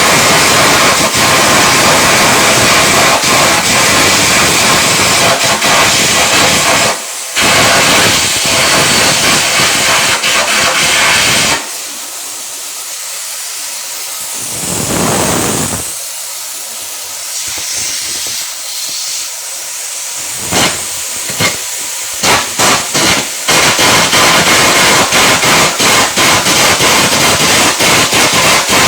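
Electric arc welding: the arc crackles and sizzles steadily with rapid sputtering clicks, breaks off briefly about seven seconds in, goes quiet for a stretch in the middle with a few short bursts, and then strikes up again crackling.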